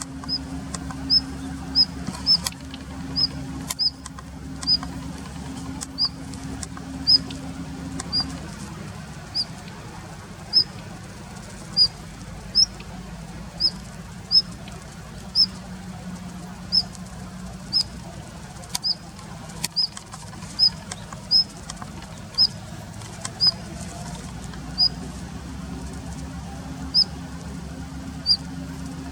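Daurian redstart calling with short, thin, high single notes, repeated over and over at roughly one a second. A steady low hum runs underneath.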